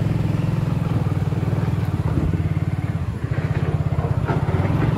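Hero Glamour motorcycle's single-cylinder engine running steadily as it is ridden from tarmac onto a rough, rocky dirt road. The engine sound dips briefly a little past halfway, then picks up again.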